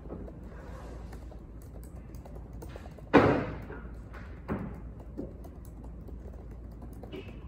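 Light tapping and clicking on a laptop keyboard over a steady room hum, with one loud knock about three seconds in and two softer knocks soon after.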